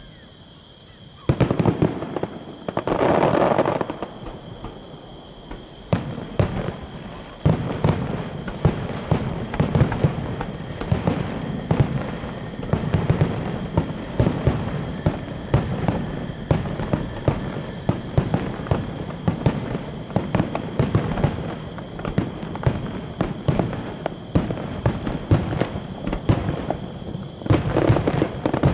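Fireworks going off in quick succession, a dense run of pops, crackles and bangs that starts suddenly about a second in, with a louder burst a couple of seconds later.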